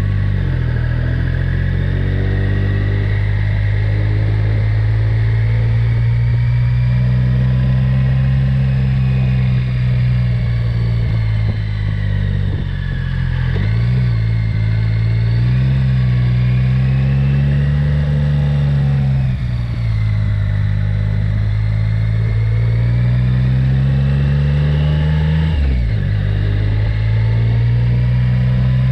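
Motorcycle engine running while riding, its note rising and falling with the throttle and speed, with brief sharp dips in pitch about halfway through and again near the end.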